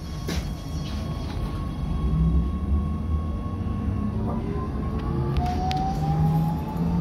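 Electric tram heard from its front cab: a low rolling rumble and a steady tone, then from about four seconds in a whine from the electric drive that climbs in pitch as the tram picks up speed. A sharp click just after the start and a few light clicks near the end, typical of wheels on rail joints and points.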